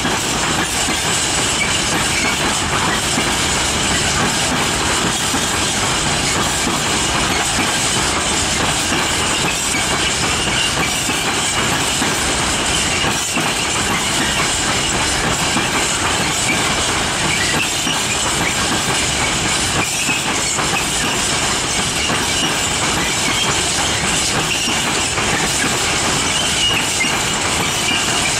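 Freight wagons, InnoWaggon flats carrying Innofreight RockTainer ORE containers, rolling steadily past, with the wheels clicking over the rail joints.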